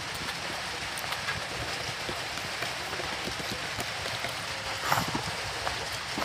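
Close-miked hand-eating: fingers squishing and mixing rice and curry on a plate with small wet clicks, then a mouthful taken about five seconds in, over a steady hiss.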